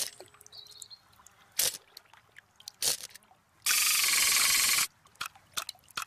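Cartoon robot sound effects: scattered sharp clicks and a brief high chirp, then a loud hissing whirr lasting about a second from around the middle.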